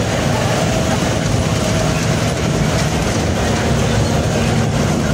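Open-sided safari tour vehicle driving along the road, heard from inside: steady engine and road noise with body rattle.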